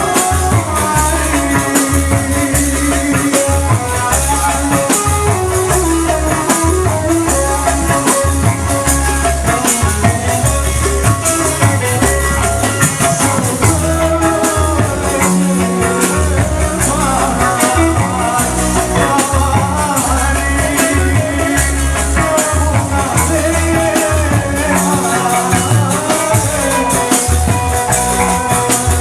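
Loud live music from a Sasak kecimol-style street band played through a PA sound system: a wavering melody over steady drums and shaken rattle percussion.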